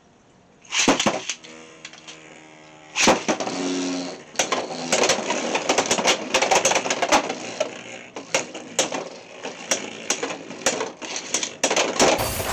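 Beyblade X spinning tops launched into a plastic stadium, whirring as they spin. From about four seconds in they clash over and over against each other and the stadium walls in quick, sharp clacks.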